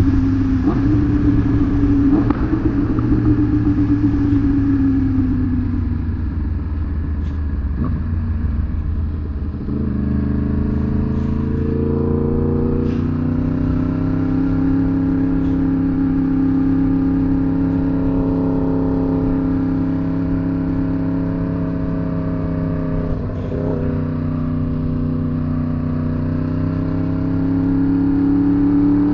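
Sportbike engine heard from on board while riding: engine speed eases off over the first few seconds, then settles into steady cruising. There are brief breaks in the note about ten seconds in and again near 23 seconds, like gear changes, and revs climb again near the end.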